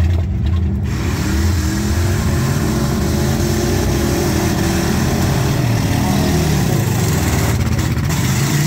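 Several demolition-derby cars' V8 engines revving and running hard at once, the pitch rising and falling. A loud, steady rush of engine and exhaust noise fills in from about a second in.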